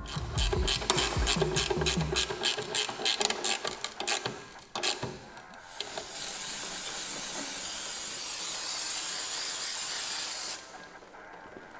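Rapid, even clicking, about four clicks a second, for the first few seconds. Then a steady hiss of pressurised spray or escaping air lasts about five seconds and cuts off suddenly.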